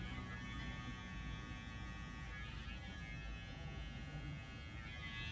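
Electric hair clipper running with a steady buzz.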